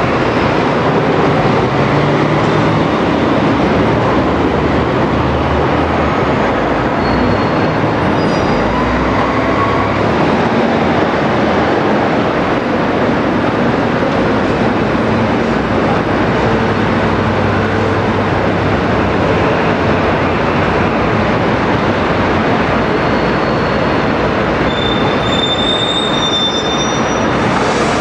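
Loud, steady rushing and rumbling noise, with a few brief high-pitched squeals near the end.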